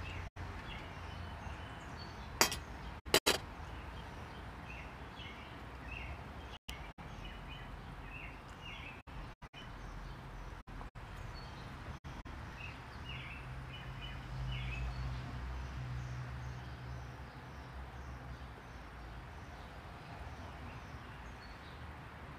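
Small birds chirping on and off over a steady outdoor background, with two sharp clinks a few seconds in and a low rumble that swells around the middle.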